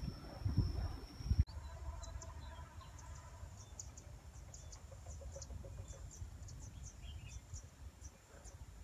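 Insects calling: a steady high buzz for the first second and a half, then many short, rapid high chirps, with a few faint bird calls and a low wind rumble on the microphone.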